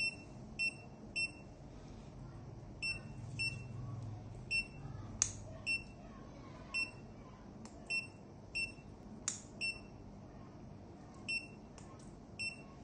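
Veterinary patient monitor beeping with the anaesthetised dog's pulse: short high beeps, about one a second, at slightly uneven gaps. Two sharp clicks stand out among them.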